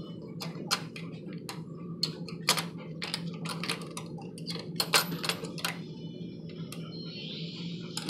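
A run of irregular small clicks and taps, about fifteen to twenty with uneven gaps, the sharpest around two and a half and five seconds in, over a steady low hum.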